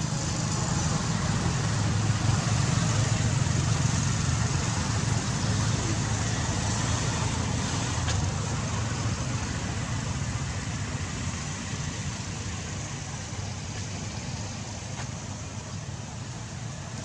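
A motor vehicle's engine running steadily with a low rumble, slowly fading away.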